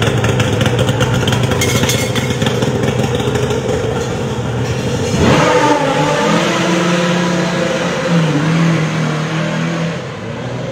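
A small petrol engine running at steady speed. About five seconds in the sound changes, with tones that glide up and down.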